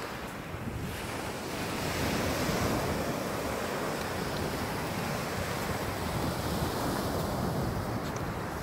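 Ocean surf washing on the beach, a steady rushing noise that swells about two seconds in, with wind buffeting the microphone.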